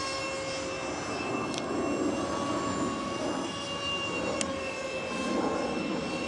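Twin 70 mm electric ducted fans (E-flite V-15 units on BL15 motors) of an RC Su-34 model jet running in flight: a steady whine of several tones over a rush of air.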